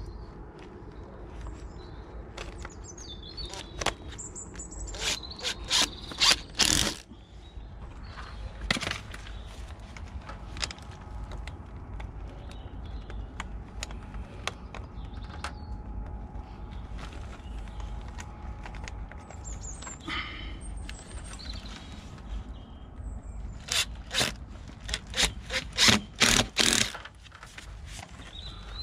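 Sharp knocks and clicks from fitting a rainwater downpipe, in two clusters: about five to seven seconds in and again near the end. Birds chirp in between.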